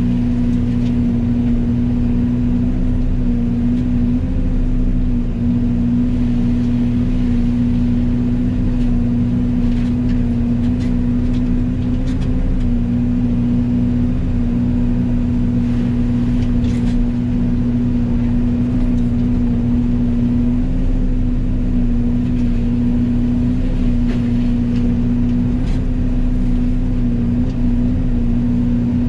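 Yanmar ViO80 excavator with a Fecon FMX36 forestry mulching head running steadily: a constant machine drone with a strong, even hum. A few faint short clicks come through around the middle.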